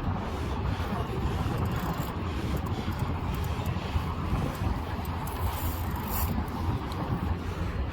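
Wind buffeting the microphone: a steady low rumble, with faint ticks and rustles here and there.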